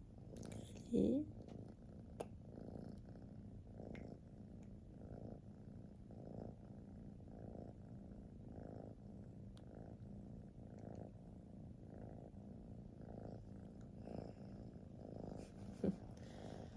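Ragamese kitten purring steadily, the purr pulsing with each breath, with two short, louder calls of bending pitch: one about a second in and one near the end.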